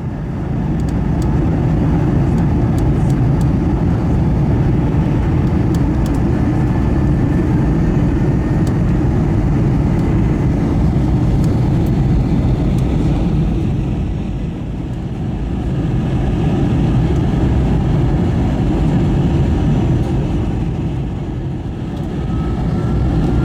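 Airbus A321 airliner noise heard inside the cabin: a steady low rush of engines and airflow, dipping slightly in level around the middle and again near the end.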